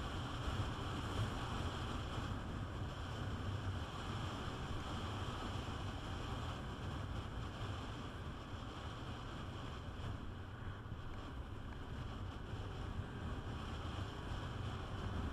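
Steady wind rush buffeting the microphone of a Peugeot Metropolis 400 scooter riding along an open road, with the scooter's engine and tyres underneath. It eases a little midway, then builds again near the end.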